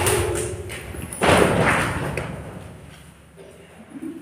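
A group of children doing jumping jacks with an overhead clap: a burst of claps and thuds from landing feet at the start and again about a second later, fading away after each.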